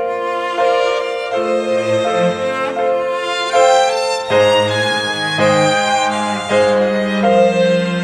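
Solo violin playing a slow melody, with lower bowed strings holding notes beneath it.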